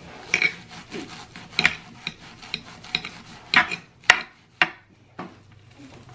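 Knife chopping lemongrass on a cutting board: irregular chops and scrapes, with the sharpest knock a little past the middle.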